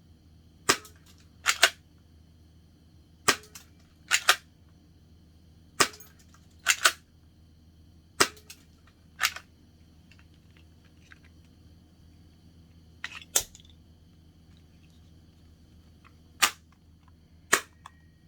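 S2S P99 spring-powered airsoft pistol being cocked and fired repeatedly: sharp plastic clacks come in pairs about a second apart, about six times over, each pair a single click followed by a louder double click.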